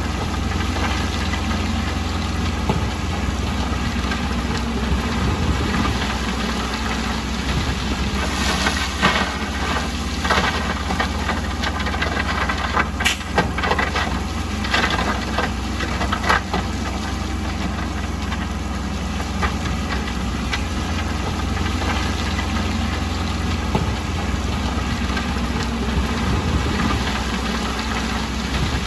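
Heavy earthmoving machine's diesel engine running steadily, with a run of sharp knocks and rattles for several seconds starting about a third of the way in.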